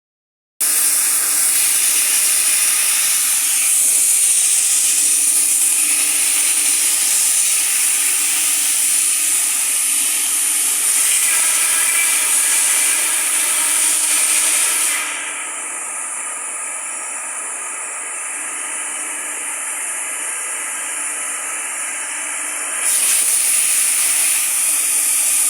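Three-station wood sanding machine running, a loud steady hiss of abrasive over a low steady tone. Partway through the high hiss drops away and the sound goes quieter for several seconds, then the full hiss returns.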